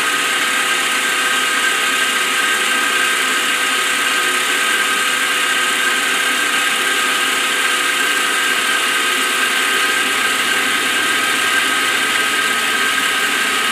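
CNC milling machine running, its spindle turning an end mill that cuts into an aluminium billet part held in a vise: a steady machining noise with an even, unchanging whine.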